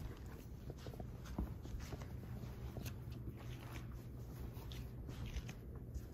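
American bully puppies scampering and scuffling on a blanket over a wood floor: irregular soft taps, scratches and claw clicks from their paws.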